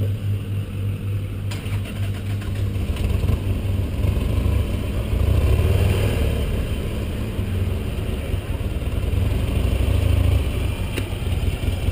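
Motorcycle engine running steadily while riding, with a constant low hum under wind and road noise, a little louder about four to six seconds in.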